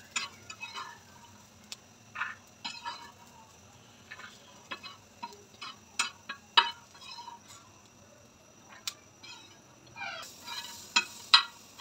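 Corn kernels being stirred and scraped around on a hot tawa (flat griddle) as they dry-roast: scattered scrapes and sharp clicks at uneven intervals, with a few louder clicks about six seconds in and again near the end.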